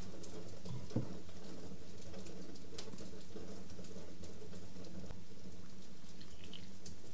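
Light scraping and tapping of a spoon working flour out of a wooden scoop into a bowl of sourdough starter, a scatter of soft ticks with a small knock about a second in, over a steady low hum. Near the end a little water is poured in from a glass.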